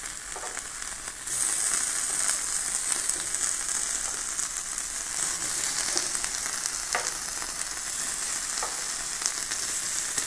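Marinated chicken pieces sizzling on a hot perforated metal grill plate; the sizzle gets louder about a second in as more pieces go on. A few light metallic clicks of tongs against the grill come through.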